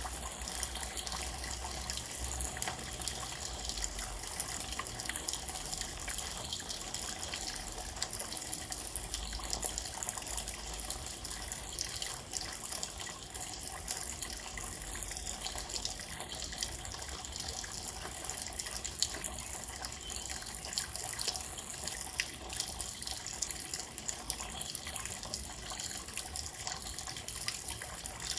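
Steady rain falling, with many close individual drops splashing and dripping, and a faint low rumble that comes and goes.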